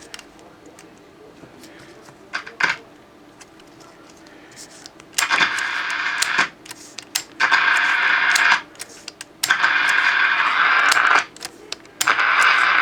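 Becker Europa MU car radio's output cutting abruptly in and out as its band switch is worked. Four bursts of hissy radio sound, each about a second long, come in the second half, with scattered clicks and crackles before them. The repairer suspects the band switch as the cause of the intermittent sound.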